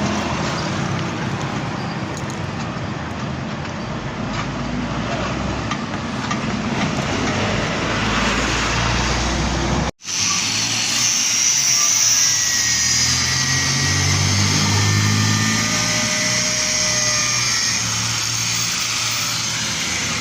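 Motor vehicle engine running amid steady street and shop noise, broken by an abrupt cut about halfway, after which a lower engine note comes through more clearly.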